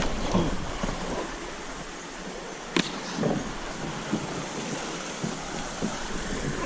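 Steady rushing of a rain-swollen creek, with a few knocks and clicks over it, the sharpest a little under three seconds in.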